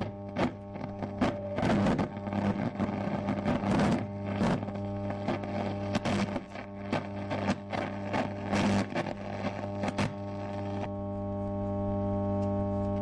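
Old radio sound effect: a steady electrical hum with crackling static and bursts of noise over it. About eleven seconds in, the crackle stops and the hum carries on alone.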